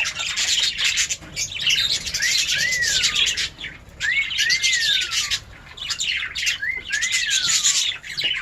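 A flock of caged lovebirds chattering and chirping constantly, loud and busy. Three times a clear whistled call, rising then falling, rings out over the chatter in quick pairs.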